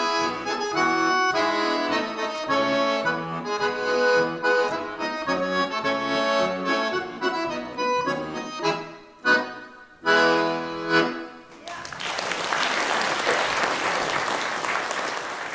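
Button accordion playing a polka, ending with three separate short chords about nine to eleven seconds in. An audience then applauds.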